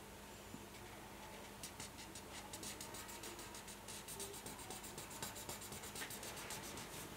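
Felt-tip marker scribbling on paper, colouring in with quick back-and-forth strokes, several a second. The strokes start about a second and a half in and ease off near the end.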